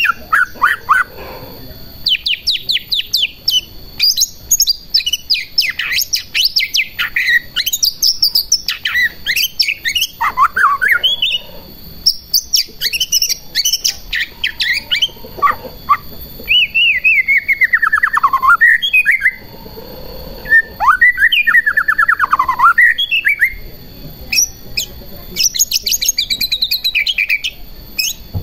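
White-rumped shama (murai batu) in full song: a long, varied sequence of rapid trills and fast chattering runs alternating with sweeping whistled phrases, broken by short pauses between phrases.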